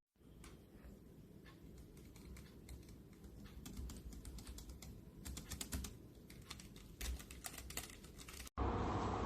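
Typing on a Keychron low-profile mechanical keyboard with optical switches: a run of quick key clicks, coming in denser bursts in the middle and near the end. It stops abruptly about eight and a half seconds in, and a loud steady rumbling noise takes over.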